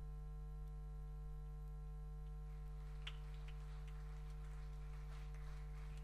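A steady low hum. About two and a half seconds in, soft, irregular footfalls of several barefoot dancers walking across a stage floor begin.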